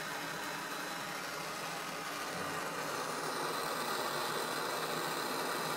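Handheld blow torch flame burning with a steady hiss while heating a copper pipe solder joint.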